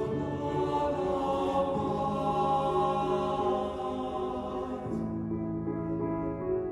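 Men's chorus singing a sustained choral passage with piano accompaniment. About five seconds in the voices fall away, leaving the piano ringing on.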